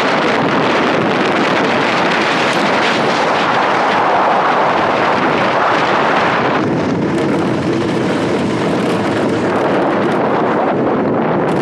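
Wind rushing over the onboard microphone, with tyre noise from an engineless speed-down gravity racer rolling fast down an asphalt road. The rush turns duller about seven seconds in.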